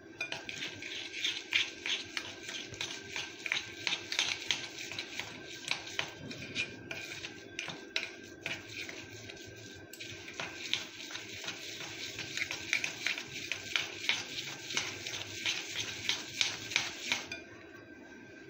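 Steel spoon stirring and scraping in a glass bowl, working desiccated coconut into a paste of jaggery and ghee, with quick irregular clinks. It eases off for a couple of seconds midway and stops about a second before the end.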